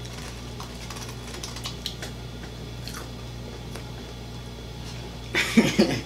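Light clicks and ticks of fingers picking at fried chicken and food on plates, with people eating by hand, over a steady low hum. Near the end comes a brief, loud burst of a voice.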